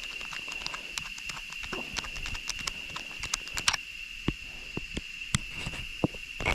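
Footsteps on a jungle trail: irregular crunching steps and knocks. A steady high-pitched insect drone runs behind them.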